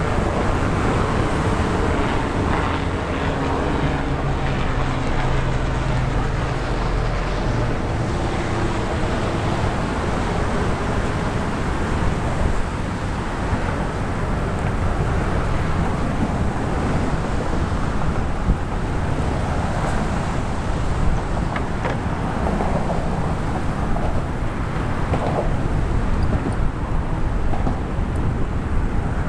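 Steady wind noise buffeting the microphone of a camera carried on a moving bicycle, over the hum of car traffic on the bridge roadway. A low engine hum stands out in the first several seconds.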